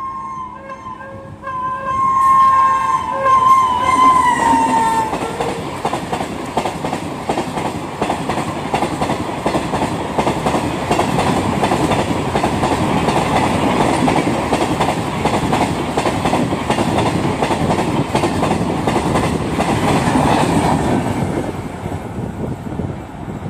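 A locomotive horn sounds long as an express train closes in, its pitch dropping as it passes. Then comes the steady rumble and rapid wheel clatter of a long rake of sleeper coaches running through at speed, fading away near the end.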